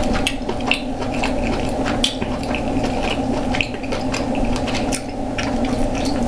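Close-miked eating sounds of a curry seafood boil: wet chewing and squishing with frequent short clicks and cracks from shellfish shells being handled, over a steady low hum.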